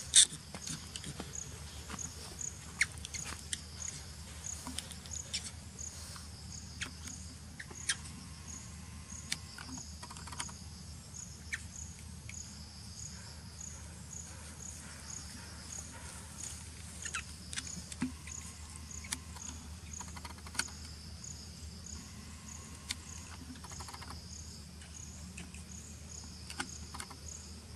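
An insect chirping steadily outdoors, a short high-pitched pulse repeated about two to three times a second, with scattered light clicks and taps over it.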